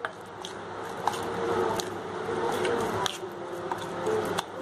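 Spatula scraping and clicking against a glass bowl while stirring a thick paste of curd, gram flour and spices, with an uneven series of sharp clicks.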